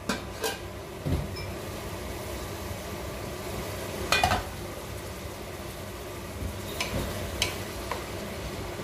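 Aluminium pot lid lifted off a pot of tomatoes and onions sautéing, with clinks of metal and a louder clatter about four seconds in, over a steady soft sizzle; a wooden spoon begins stirring near the end.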